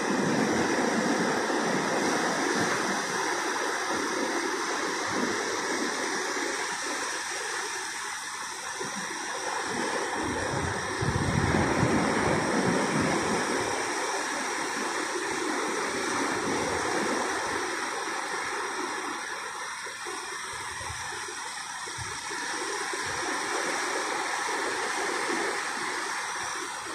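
Ocean surf breaking and washing up a sandy beach, a steady rush that swells louder about eleven seconds in.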